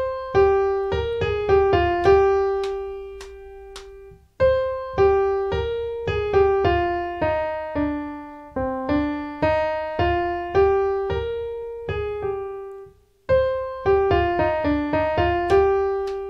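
Keyboard with a piano sound playing a simple single-note melody alone, each note struck and fading, in three phrases with short breaks between them. It is the tune the singers are to sing along with on "ou" without the teacher's voice.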